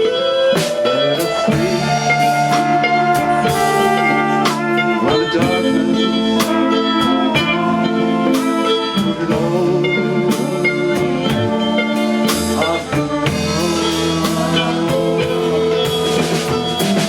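Live rock band playing an instrumental passage between sung verses: guitar holding sustained notes over a steady drum kit beat.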